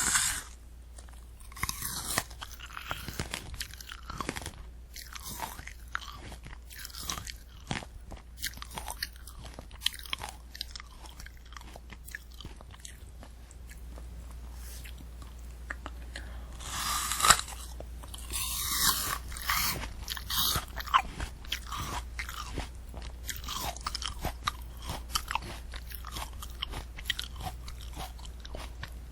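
Close-miked eating of a candy apple: the hard candy shell and crisp apple crunching and chewing between the teeth, with many small clicks between bites. Louder crunches come a couple of seconds in and again a little past the middle.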